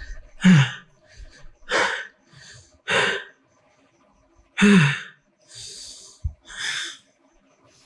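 A young man crying: a run of heavy, uneven breaths and sharp intakes of breath, with two short voiced sobs that drop in pitch, about half a second in and again near five seconds.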